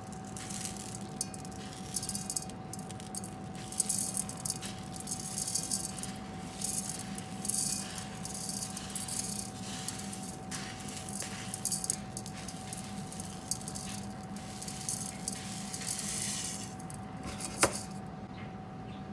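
Coarse brown sugar crystals poured from a plastic container into an electric pressure cooker's inner pot of soybeans, a grainy rattling hiss that comes in uneven waves as the pour goes on. A single sharp knock near the end.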